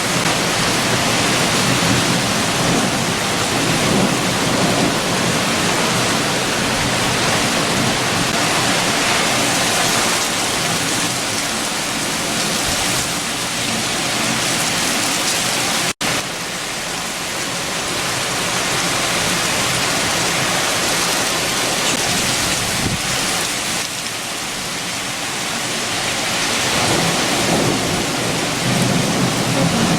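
Heavy rain with strong wind, a steady dense hiss, with low rumbling swells near the start and again near the end. The sound cuts out for an instant about halfway through.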